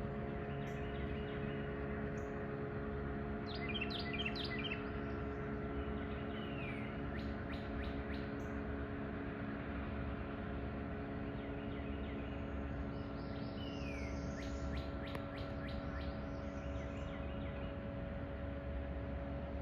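A low, steady drone made of several held tones, typical of a towboat's diesel engines pushing coal barges, runs throughout. Birds chirp and call over it, including a few short down-slurred calls and clusters of quick chirps.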